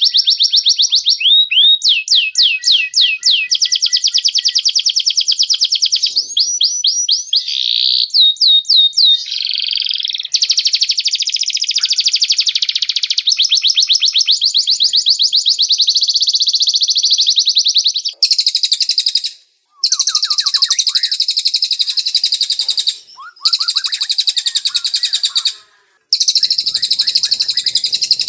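White-rumped shama and canary song: long runs of rapid, high trills and repeated notes, changing pattern every few seconds, broken by short silences about two-thirds of the way in and near the end.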